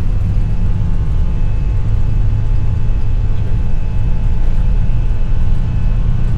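Airbus A320 flight-deck noise during takeoff at flex thrust: a loud, steady low rumble of the CFM56-5B4 engines and airflow, with faint steady whine tones above it.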